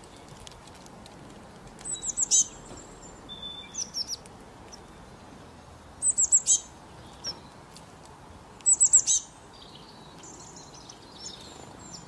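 A small songbird calling: three short bursts of quick, high, falling notes, about two, six and nine seconds in, with a few softer chirps between them.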